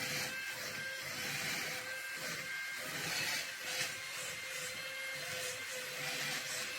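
Small electric suction-fan motor of a remote-control wall-crawling gecko toy running with a steady whine, its hiss swelling and fading as the toy moves.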